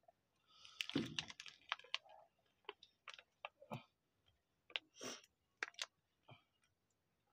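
Faint, irregular crinkling and clicking as a thin foil-and-plastic lid is peeled off a small sealed drink cup.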